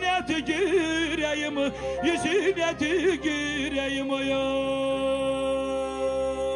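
Male singer performing a Turkish folk song live through a microphone and PA over a band accompaniment, with quick ornamented vocal runs, then a long steady held note through the second half.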